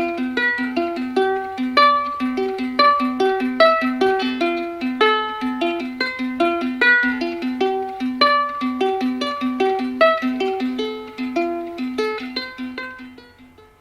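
Background music: a bright plucked-string tune, ukulele-like, with quick repeated notes over a steady bass note, fading out near the end.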